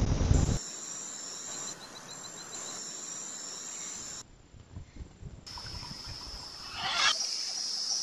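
Tropical forest insects (crickets and cicadas) buzzing as a steady high-pitched chorus, with a short quick repeated trill in it, breaking off and resuming abruptly between clips. A low rumbling noise fills the first half-second, and a brief louder burst comes about seven seconds in.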